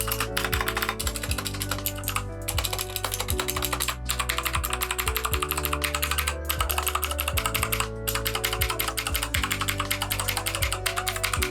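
Fast typing on a Keychron K2 mechanical keyboard fitted with factory-unlubed Gateron switches: a dense stream of key clicks broken by a few brief pauses. Background music with sustained low notes plays underneath.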